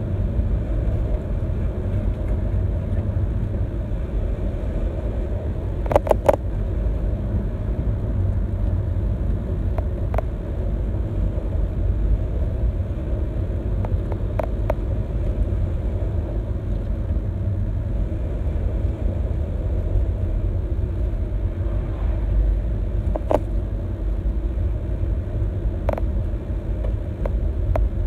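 Steady low road and engine rumble of a car driving along, heard from inside the moving car, with a few short knocks or clicks, a quick cluster of them about six seconds in.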